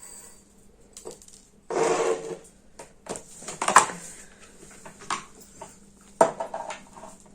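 Dry rice being poured into a bowl, with a rattling pour about two seconds in and another near four seconds, between scattered clicks and a sharp knock against the bowl about six seconds in.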